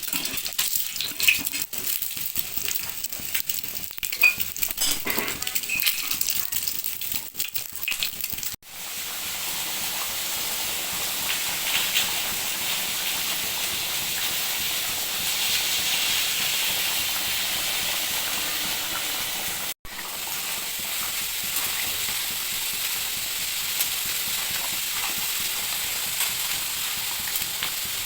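Egg and potato curry boiling in a pan, a steady sizzling, bubbling hiss. During the first third it crackles with many sharp ticks; the sound drops out for an instant twice, about eight and twenty seconds in.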